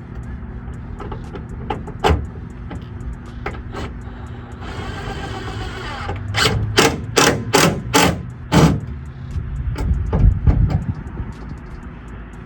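Hands-on work fitting a truck taillight: scattered clicks, a short whirr lasting about a second and a half, then a run of about five sharp knocks roughly two a second, over a steady low hum.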